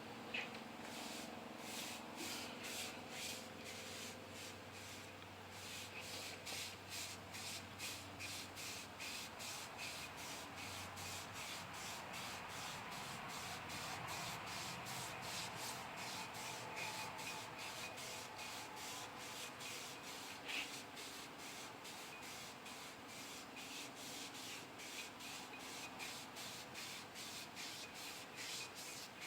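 Flat shoestring being worked back and forth around a crankshaft journal to polish it, a steady rubbing swish at about two strokes a second.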